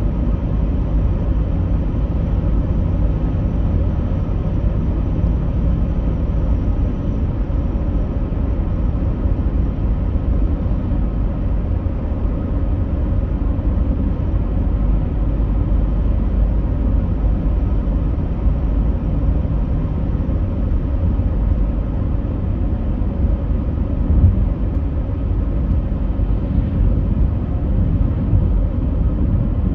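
Steady, even low rumble, heaviest in the bass, with one small bump about two-thirds of the way through.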